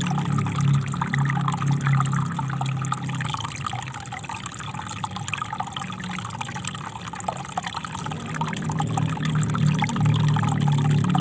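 Small river flowing: a steady rush and babble of water, with a low rumble that eases through the middle and swells again near the end.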